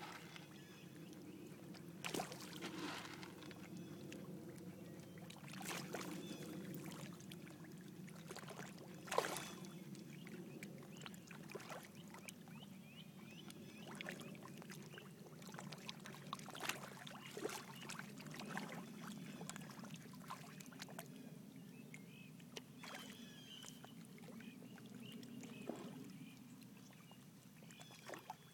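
Water sloshing and splashing steadily, broken by a handful of sharper splashes, the loudest about nine seconds in.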